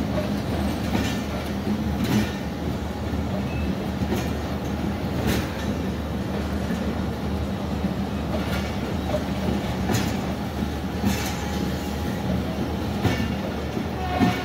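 Pakistan Railways passenger coaches rolling past a station platform, their wheels clacking over rail joints every second or two above a steady low rumble and hum.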